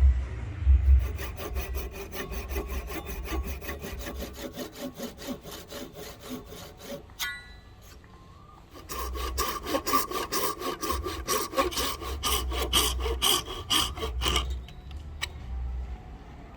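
Rapid back-and-forth strokes of a hand tool working wood, like sawing, at about five strokes a second. The strokes stop about seven seconds in and start again near nine seconds, and the second run carries a ringing squeal.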